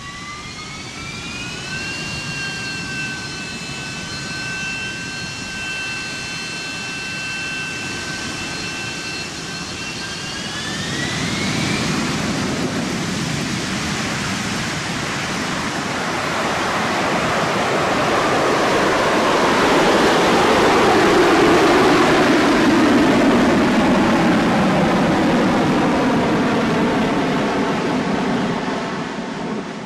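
Harrier jump jet's Pegasus turbofan: a high whine rises, holds steady, then climbs about ten seconds in into a growing jet roar that is loudest about twenty seconds in and eases off toward the end.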